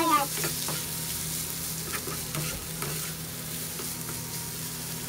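Diced tempeh frying in a sweet soy glaze in a nonstick wok, a steady sizzle with a spatula scraping and stirring it in a few short strokes.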